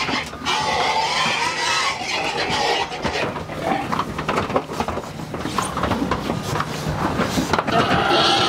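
Pigs packed tightly in a livestock transport trailer squealing in distress, loudest at the start and again near the end.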